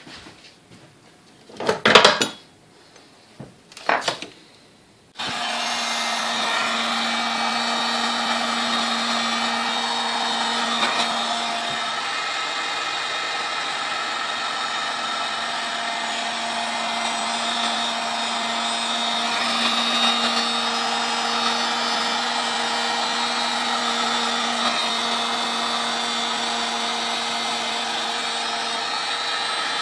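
A couple of knocks, then an electric heat gun is switched on about five seconds in and runs steadily. It is being played over the head of a vintage stand mixer to soften old varnish so that a stuck part will come out.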